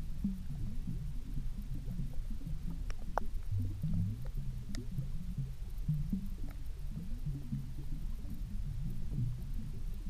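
Underwater sound picked up by a camera on a canal bed: a continuous low rumbling and burbling, with a few sharp clicks around three and five seconds in.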